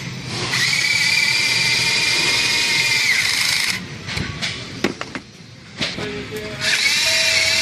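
Small cordless power tool motor whining steadily in two runs of a few seconds each, with a few sharp clicks in between.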